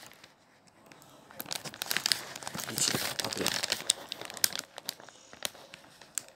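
Small sealed collectible packet crinkling and tearing as fingers pull it open. It is quiet for the first second or so, then a dense run of crackles begins about a second and a half in and thins to scattered crinkles near the end.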